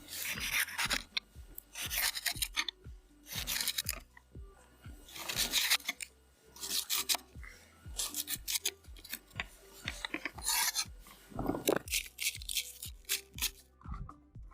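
Repeated rough scraping strokes, one every second or two, over a steady low hum.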